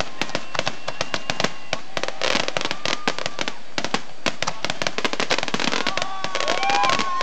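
Fireworks display: a dense, rapid crackle of many sharp bangs and pops from bursting shells and crackling stars. Near the end, a few rising-and-falling whistles sound over the crackle.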